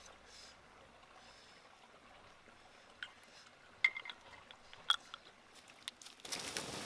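Someone eating cooked snails: a few short clicks and crunches over a quiet background, then a steady rushing noise begins near the end.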